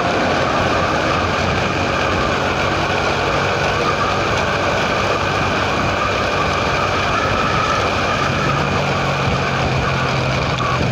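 Steady engine and road noise from a moving vehicle on the road, with a low engine hum that grows a little stronger about eight seconds in.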